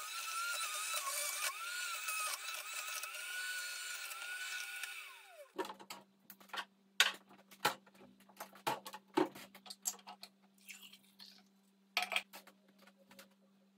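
Electric centrifugal juicer running as celery is pushed through it, its motor pitch wavering under the load. About five seconds in it is switched off and winds down. Then come a series of sharp clicks and knocks from kitchen things being handled, a cupboard door and glassware.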